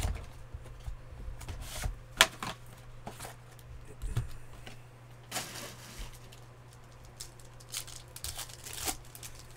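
Plastic shrink wrap torn and crinkled off a trading-card box, then the box opened and its cards handled, in short irregular bursts of crackling and rustling over a steady low hum.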